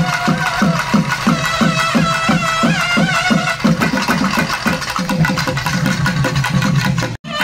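Folk music played on hand-held drums with a melody line above. The drums beat a steady rhythm of about three strokes a second, then change to a denser pattern about halfway through. The sound cuts out abruptly for a moment near the end.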